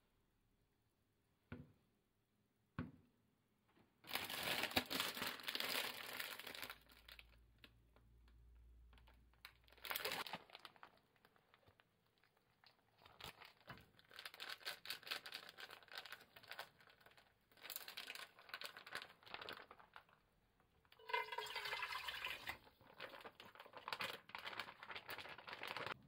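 Kitchen handling sounds: a couple of light knocks, then repeated crinkling and tearing of plastic packaging, and near the end liquid poured into an empty cooking pot, its pitch rising as the pot fills.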